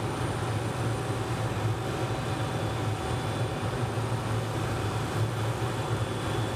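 Helicopter running on the ground before takeoff: a steady low drone with several thin, steady high whining tones over it, without rising or falling.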